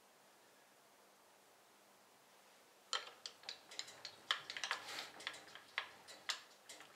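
Near silence, then from about three seconds in a quick, irregular series of small clicks and light metallic taps, from hand adjustment of the mounting of a digital readout scale on a milling machine as it is nudged into line.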